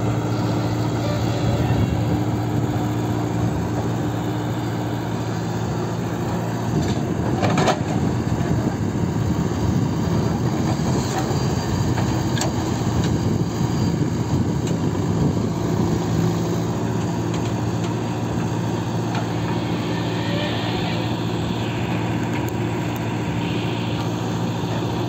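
JCB 3DX backhoe loader's diesel engine running steadily under load while the backhoe arm digs and lifts soil, with one sharp knock about seven and a half seconds in.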